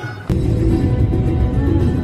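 Background music. About a third of a second in, a loud, steady low rumble cuts in suddenly: the inside of a moving car in heavy rain.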